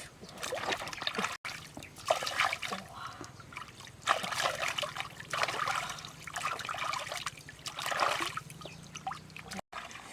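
Water splashing and trickling in irregular bursts, with a faint low hum underneath through most of it.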